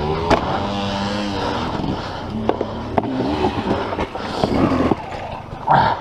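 Enduro dirt-bike engine revving under changing throttle, its pitch rising and falling, with several sharp knocks. About five seconds in the engine note drops away and a short loud burst follows.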